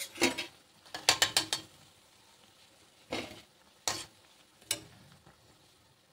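Perforated steel slotted spoon scraping and clinking against the metal kadhai as fried pakoras are scooped out of hot oil. One stroke at the start, a quick run of four about a second in, then single strokes near the three-, four- and five-second marks, over a faint sizzle of the frying oil.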